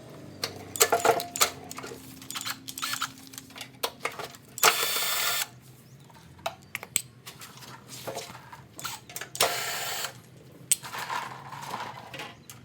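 Clicks, knocks and clatter of hand work on a small lawnmower engine's metal parts, with two short hissing bursts of about a second each.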